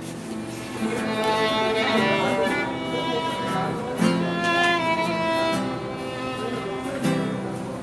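Fiddle playing a bluegrass melody in held, sliding notes over strummed acoustic guitar.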